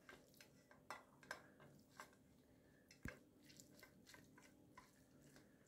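Faint, irregular soft crunches and taps of a wooden spoon stirring and pressing fried chicken pieces in a plastic strainer to drain off the frying oil.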